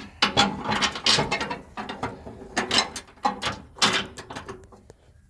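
Irregular metallic clanks and clicks of tow-bar bolts, plates and hand tools being worked into place, dying away near the end.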